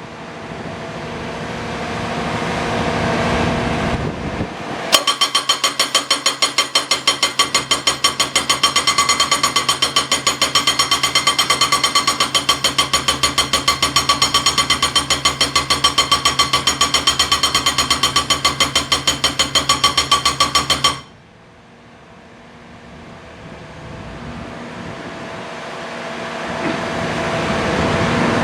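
AY Heavy Industries A22 hydraulic breaker hammering with rapid, evenly spaced blows and a ringing metallic note for about sixteen seconds, stopping abruptly. Before and after the hammering, the machine's engine and hydraulics run and rise steadily.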